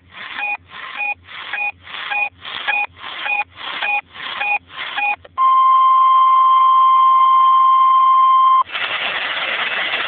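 NOAA weather radio receiver sounding the weekly test: a run of short beeps about twice a second, then about five seconds in the steady single-pitch warning alarm tone for about three seconds. The tone cuts off and hiss-filled broadcast audio follows near the end.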